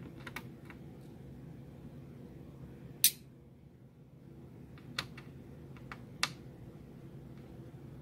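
A small precision screwdriver working a screw out of a laptop's metal screen-hinge bracket: a few scattered light clicks and ticks, with one sharp, loud click about three seconds in. A steady low hum runs underneath.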